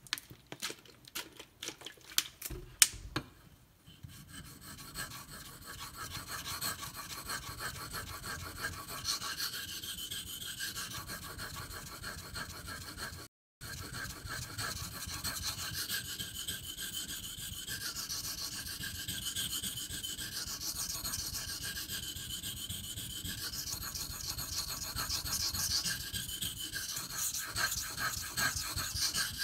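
Steel knife blade ground back and forth on a coarse 500-grit Beston whetstone, a steady rasping scrape of rapid strokes as material is taken off to thin the bevel above the edge. A few clicks and knocks come in the first few seconds before the strokes settle in, and the sound breaks off for an instant about halfway.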